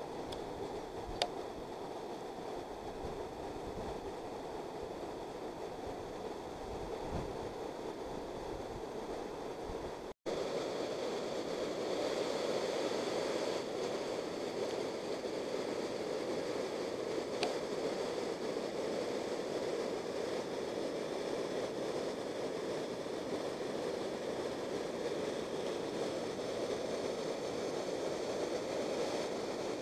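Water of the Aveyron river rushing over a low weir: a steady, even rushing sound. It is cut off for an instant about ten seconds in and comes back slightly louder.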